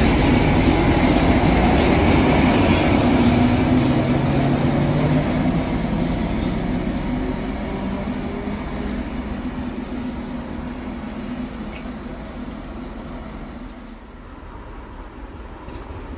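ZSSK Class 754 diesel-electric locomotive, with its six-cylinder ČKD diesel engine, running under power as it pulls away light. The engine note steps up about four seconds in, then the sound fades steadily as the locomotive moves off down the track.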